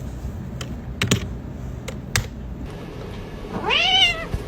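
A domestic cat meows once near the end, a single call that rises and then falls in pitch. Before it come a few sharp clicks over a low steady hum.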